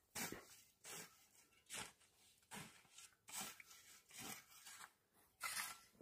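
Long-handled rake scraping and rustling through dry cut grass and stubble on hard ground, in about seven short strokes roughly one a second, the last ones loudest.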